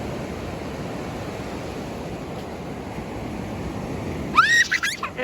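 Steady rushing outdoor noise, with a short, loud, high-pitched cry near the end that rises and then falls.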